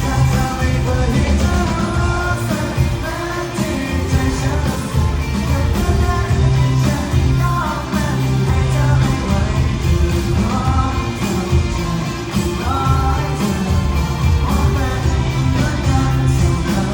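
A live rock band playing a song with a lead vocalist singing over heavy bass and drums, recorded loud from the crowd.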